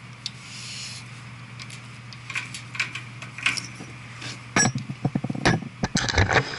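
Metal tools and copper tubing being handled: scattered clinks and knocks that get more frequent and louder in the last two seconds, over a steady low hum.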